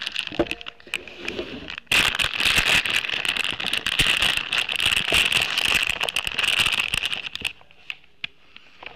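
Crackling, rustling handling noise right on the webcam's microphone as a hand and a towel-wrapped puppy brush against the camera. It starts suddenly about two seconds in and drops away near the end.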